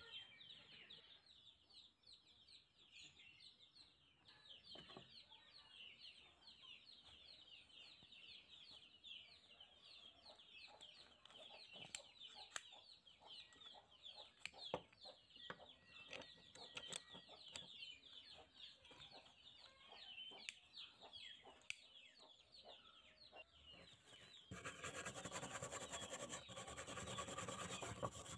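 Faint birds chirping in the background, with a few scattered clicks and taps. About 24 seconds in, a hand wire brush starts scrubbing rust off old steel locking pliers, a steady scratchy scrubbing that is the loudest sound.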